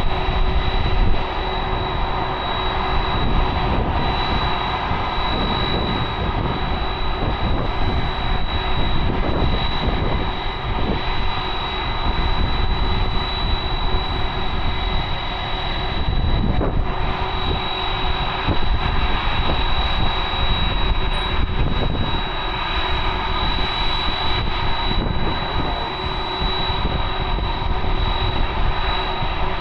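Jet aircraft engines running steadily: a continuous roar with a constant high-pitched whine.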